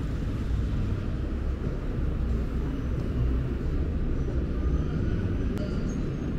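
Steady low rumble of city street traffic, with a faint click about five and a half seconds in.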